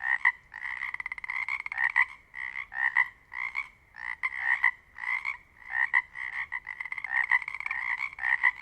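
A chorus of Pacific chorus frogs calling, many frogs overlapping. Their short two-part croaks repeat several times a second, with a few fast rattling trills among them, and each frog sounds a little different.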